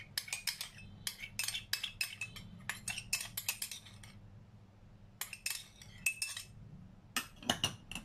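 Metal spoon scraping and clinking against the inside of a small ceramic bowl as thick oyster sauce is scraped out: a quick run of sharp clinks for about four seconds, then after a short pause two shorter runs.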